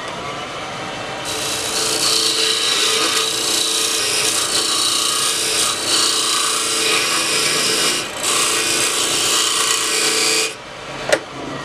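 Wood lathe running while a scraper cuts inside the bore of a spinning ambrosia maple ring blank, widening it to fit a stainless steel ring core: a steady scraping hiss over the motor hum, with a brief break about eight seconds in. Near the end the cutting and the hum stop together, followed by a single sharp knock.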